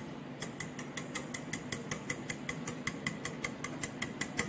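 Wire whisk beating curd with ground spices in a bowl, its tines clicking against the bowl's side in a quick steady rhythm of about four or five strokes a second.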